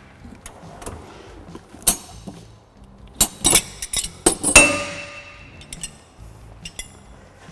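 Metal hand tools clinking and clanking against each other, with a cluster of sharp clanks about halfway through; the last one rings on for about a second as it fades.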